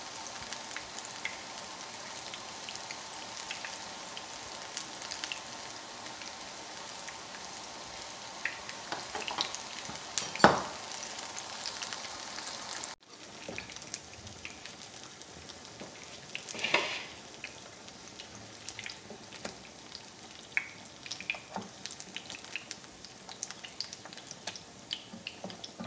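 Vegetable cutlets shallow-frying in hot oil in a pan: a steady sizzle with small crackling pops. Two sharp knocks stand out, the louder about ten seconds in and another about six seconds later.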